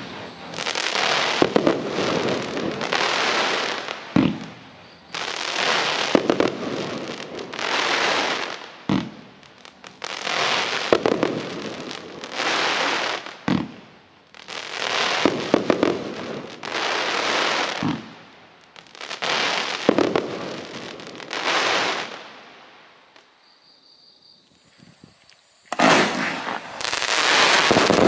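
Pyrocentury "Mad Dog" fireworks cake firing volleys of crackling shots: a sharp launch thump about every four and a half seconds, each followed by long stretches of dense crackling as the crackling tails and pots burst into crackling clouds. After a brief lull near the end, a louder, denser wave of crackling comes in.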